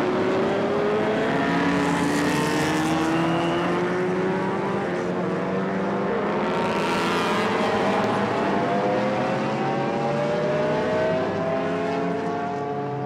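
Racing car engines running on the circuit, several at once, their notes rising slowly in pitch as they accelerate. Cars passing by make two louder swells, about two and seven seconds in.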